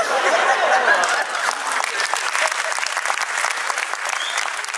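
Theatre audience applauding, a dense patter of many hands clapping, with some voices mixed in near the start.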